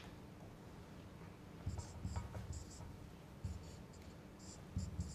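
Marker writing on a whiteboard: two runs of short, high, squeaky strokes, starting a little under two seconds in.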